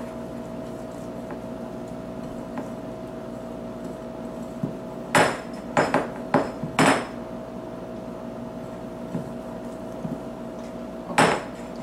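Glass mixing bowl knocking and clinking as it is handled while being greased with shortening: four sharp knocks about five seconds in and one more near the end, over a steady faint hum.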